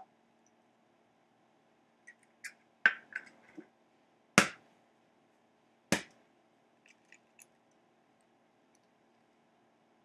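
Eggs being cracked against a mixing bowl: a few light taps and clicks, then two sharp knocks about a second and a half apart, over a faint steady hum.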